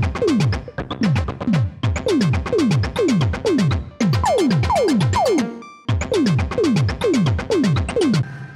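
Software synthesizer playing a fast sequenced pattern of short zapping notes, each dropping steeply in pitch, repeated in phrases of about two seconds with brief gaps between them.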